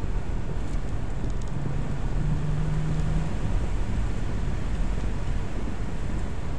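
A car's steady running noise heard from inside the cabin while driving: a low rumble of tyres on asphalt and engine, with a faint low hum about two seconds in.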